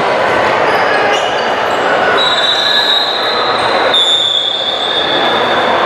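Basketball shoes squeaking on a gym court during play, with a long high squeal starting about two seconds in and lasting some three seconds, over steady gym crowd noise.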